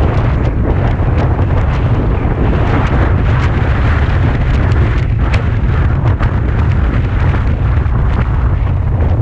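Wind buffeting the microphone of a GoPro Hero 5 Session mounted on a moving car, a constant heavy low rumble with hiss above it, and a few faint ticks in the middle.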